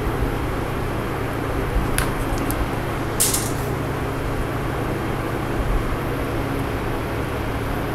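Steady background hum and noise, with a sharp click about two seconds in and a brief rustle a second later as a red wire and its connector are handled by hand.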